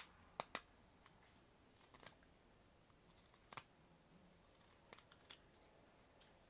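Mora carving knife making small paring cuts on a piece of hazel, the blade snicking through the wood in a few short, sharp clicks at irregular intervals over near silence.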